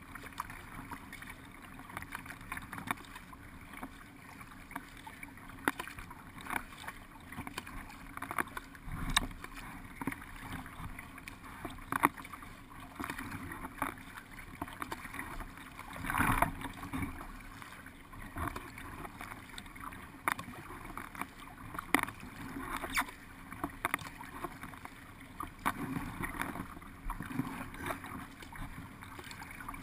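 Paddle strokes and water washing along the hull of a paddled race boat, heard from its bow deck: a steady wash with a short splash every second or two and a bigger splash about halfway through.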